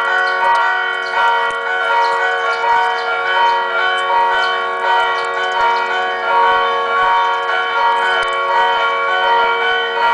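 Loud church bells ringing continuously: several bells struck over and over, about two strokes a second, their tones overlapping and ringing on.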